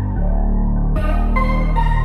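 Electronic background music with a heavy bass line; the high end comes back in about a second in.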